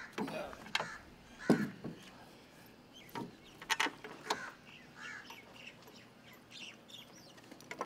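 Scattered knocks and clicks of a heavy armored window panel being handled and seated against the hull of an armored truck, the loudest knock about a second and a half in and a quick double click a little later.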